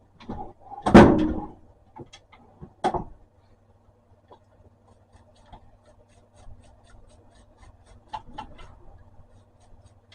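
Planer parts and tools being handled on a workbench: a heavy knock about a second in, a sharper clack near three seconds, then a few small clicks and faint, even ticking through the second half.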